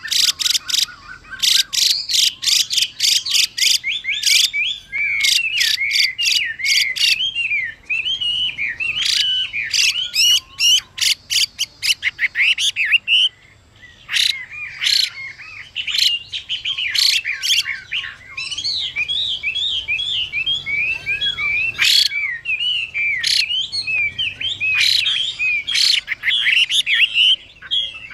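Chinese hwamei singing: a fast, varied song of warbling, sliding whistles mixed with runs of sharp, loud clipped notes, broken by a short pause about 13 seconds in.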